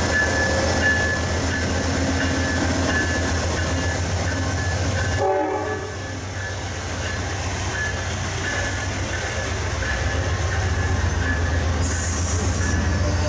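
Amtrak train led by a GE Genesis diesel locomotive passing, its diesel engine giving a steady low drone. The locomotive bell rings in a steady repeated ding, and a short horn note sounds about five seconds in.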